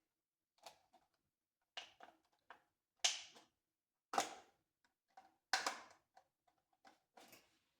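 Small scissors snipping through thick cardboard toy packaging: a string of irregular crisp cuts and crinkles, with three louder snips about three, four and five and a half seconds in.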